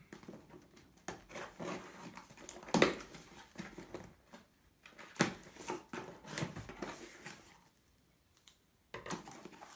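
Hands opening and unpacking a parcel of LEGO parts: scattered knocks, clicks and rustles, falling quiet for about a second near the end.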